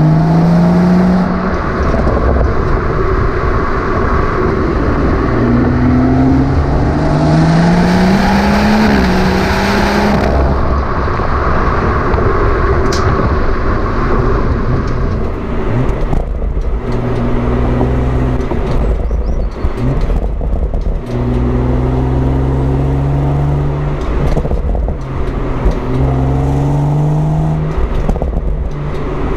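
BMW M140i's 3.0-litre turbocharged straight-six and exhaust under acceleration: the engine note climbs through the revs and drops back at each gear change. The climbs repeat several times, shorter and more frequent in the second half.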